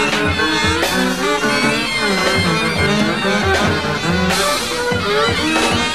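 Free jazz quintet playing live: trumpet and saxophones in dense, overlapping lines over bass and drums, with a couple of cymbal crashes.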